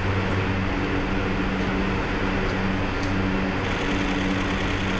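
Steady low electrical hum of a stationary Marmaray electric train and station equipment in an underground platform hall, with a few faint clicks.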